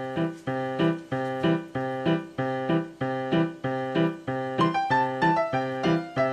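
Background music: a light keyboard tune with a steady, bouncing beat of about two notes a second.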